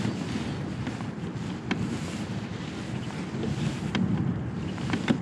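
Wind buffeting the microphone over water lapping at a plastic kayak's hull, with a few brief sharp clicks.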